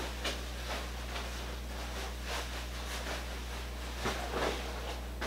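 Steady low electrical hum with faint, scattered rustling and handling noises.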